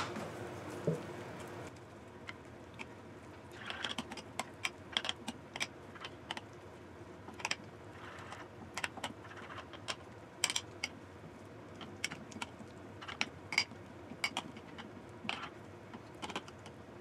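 A metal spoon tapping and scraping on food containers as porridge topping is spooned onto overnight oats: light, irregular clicks, one or two a second.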